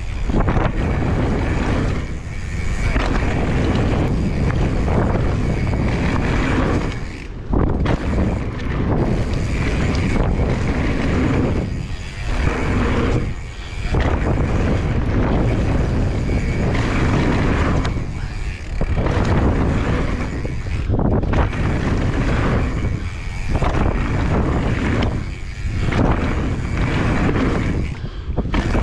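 Wind buffeting the microphone, mixed with the rolling noise of a mountain bike running fast down a downhill trail. It is a steady rushing noise that dips briefly several times.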